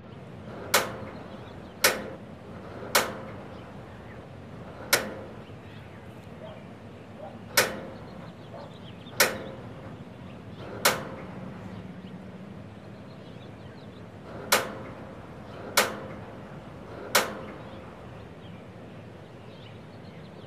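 Gas grill's igniter being pressed over and over: about ten sharp clicks at uneven gaps of one to four seconds, each with a brief ring.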